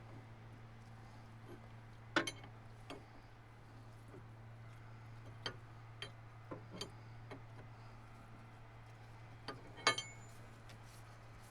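Scattered metallic clicks and clinks of a 24 mm wrench working on the pilot filter of a Kubota KX-040 excavator, the sharpest about two seconds in and again near the end, over a steady low hum.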